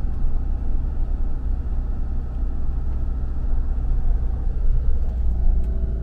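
Adria Sonic Supreme motorhome driving: a steady, low road-and-engine rumble with no change in pace.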